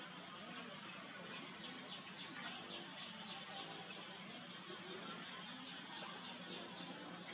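Faint outdoor ambience over a steady hiss, with a bird chirping in two quick runs of short high notes, about two seconds in and again about six seconds in.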